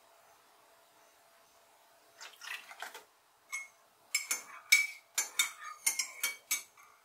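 Dishes and cutlery clattering and clinking in a kitchen: a short rattle a little past two seconds in, then a quick run of about eight sharp, ringing clinks.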